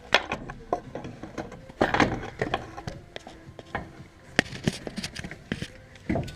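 Irregular knocks, clunks and scraping as the steering rack is handed up and worked into place in the car, with louder knocks about two seconds in and again after four seconds.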